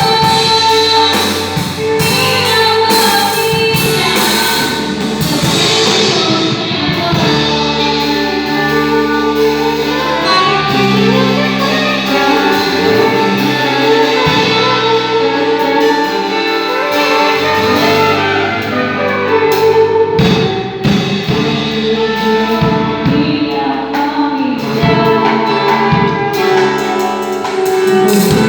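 A band rehearsing a song: drum kit keeping a steady beat under horns and singing.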